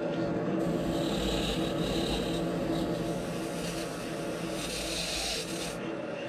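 Lathe running with a steady hum while sandpaper is held against a spinning foam blank. The sanding hiss swells and fades in strokes and drops away near the end.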